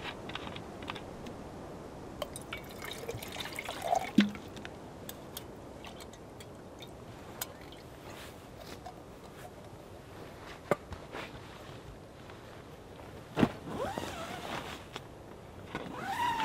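Camp gear being handled: scattered clicks and knocks, the loudest about four seconds in and about thirteen seconds in, over a faint steady hiss.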